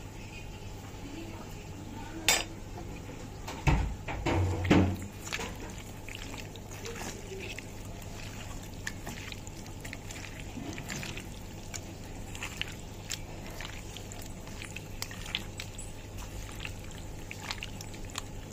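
Raw fish intestines and fat being mixed with spices by hand in a stainless steel bowl: wet squishing with small irregular clicks of fingers and pieces against the metal. A sharp clink comes about two seconds in, and a few louder knocks follow around four seconds in.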